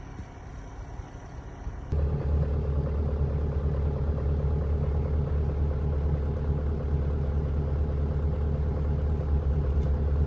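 Motor vehicle's steady, low engine rumble. It cuts in abruptly about two seconds in, after a softer noise.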